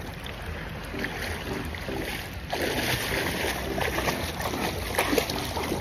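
Outdoor beach ambience: a steady rush of wind and surf, growing louder about two and a half seconds in.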